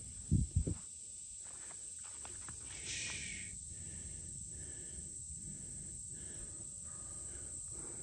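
Steady high-pitched chirring of crickets, with two short dull thumps about half a second in and a brief rustle around three seconds in.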